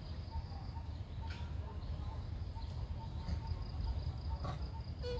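Outdoor ambience: a steady high insect trill and a short chirp repeating about three or four times a second, over a low rumble, with a couple of faint clicks.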